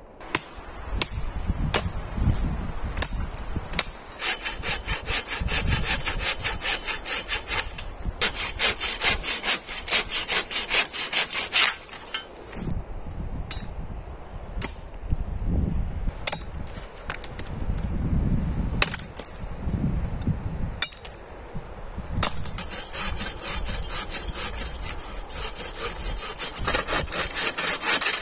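Hand saw cutting through wood in runs of quick, even back-and-forth strokes, pausing and starting again a few times.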